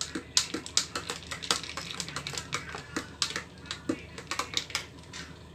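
Metal spoon stirring ice cubes in a tall glass, with a quick, irregular run of clinks and taps against the glass and ice that thins out near the end.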